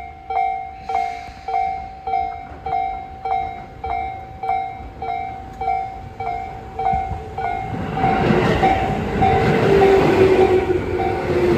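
A level-crossing warning bell dings steadily, about twice a second. About eight seconds in, the running noise of a Tobu 10030 series electric train swells over it, with a falling motor whine near the end.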